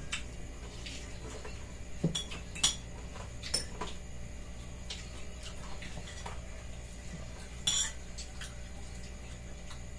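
Spoons and forks clinking and scraping on plates as people eat: a few scattered sharp clinks over a low steady hum.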